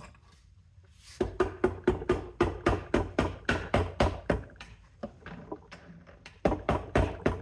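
Rapid knocking, about five blows a second, as the heated gearbox cover of a BMW R50/R60/R69S /2 gearbox is tapped down onto the case to seat it. A short pause, then a second run of knocks near the end.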